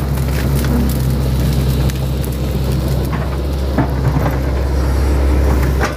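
Hitachi 110 hydraulic excavator's diesel engine running steadily while it digs, with scattered knocks and clatter on top.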